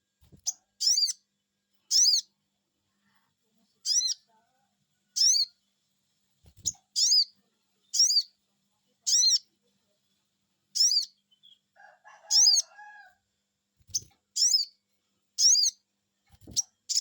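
Sogon bird calling a repeated high 'cuiit', short up-and-down chirps about one a second, used as a lure call to get other sogon birds to answer. A lower, rougher call comes in about two-thirds of the way through, and there are a few soft low thumps.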